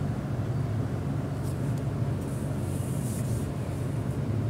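A steady low hum, with soft scraping and sizzling as a wooden spatula stirs a tomato-and-pea masala in a non-stick kadhai. A faint hiss swells about three seconds in.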